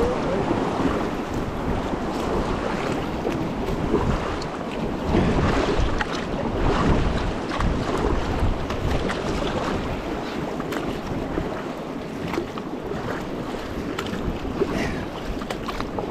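River water rushing and splashing around a raft while the crew paddles forward, with paddle strokes dipping into the water. Wind buffets the microphone.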